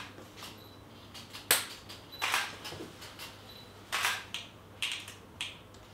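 DSLR camera shutter firing again and again, sharp single clicks and quick doubles, about eight frames in all.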